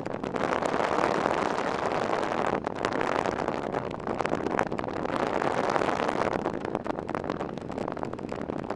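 Steady rushing, gusting wind noise on the microphone of a moving vehicle, mixed with road noise.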